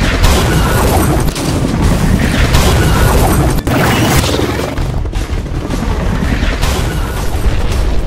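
Loud explosion sound effects, booming, laid over dramatic action-film music.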